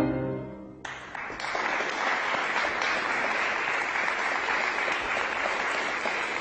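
The last chord of viola and piano dies away, and just under a second in an audience breaks into steady applause.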